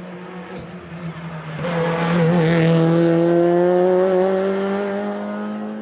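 Rally car passing close by at speed. Its engine note swells suddenly and is loudest about two seconds in, then climbs slowly in pitch as it pulls away and fades.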